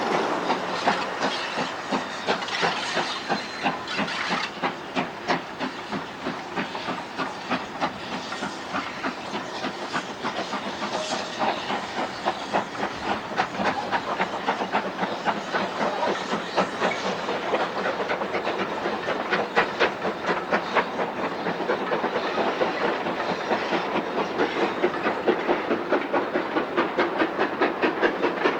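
Steam locomotive on the move: regular exhaust beats over a steady hiss of steam, the beats quickening and growing louder toward the end.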